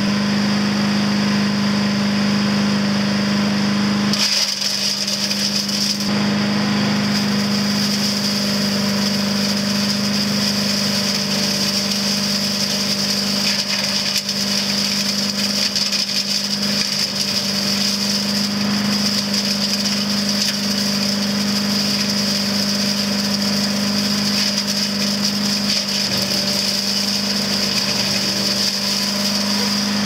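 Harbor Freight Predator 212cc chipper shredder, driven by its single-cylinder four-stroke engine, running steadily while dry leaves are shredded through its top hopper during break-in. About four seconds in, a rattling shredding noise joins the engine and carries on.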